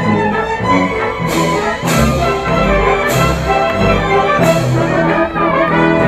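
Full orchestra playing, brass and strings together on sustained notes, with four sharp hits: about a second in, at two seconds, at three seconds and at four and a half seconds.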